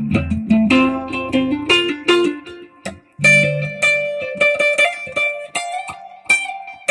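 An instrument played through a slight delay effect: a run of separate notes, a short break about three seconds in, then more notes ringing on.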